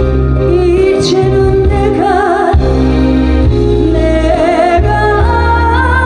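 A woman singing a Korean trot song live into a handheld microphone over musical accompaniment with a steady bass line, with vibrato on her held notes.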